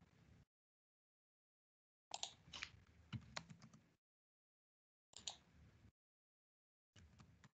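Faint computer keyboard typing: three short bursts of key clicks, the longest about two seconds in, another about five seconds in and a brief one near the end, with dead silence between them.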